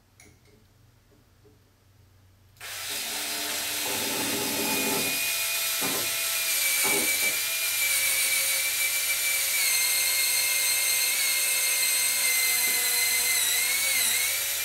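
Cordless drill starting about two and a half seconds in and then running steadily at high speed, a loud whine over a grinding hiss, as it drills overhead into the ceiling; its pitch sags briefly near the end.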